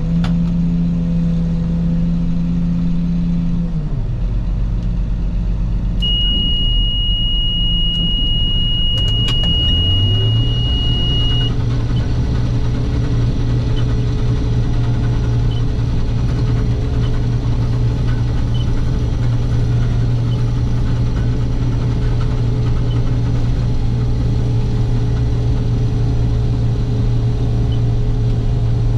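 Case IH combine running as it is brought back up to working speed. Its engine pitch drops about four seconds in, then rises about ten seconds in and settles into a steady drone. A steady high beep sounds for about five seconds from about six seconds in.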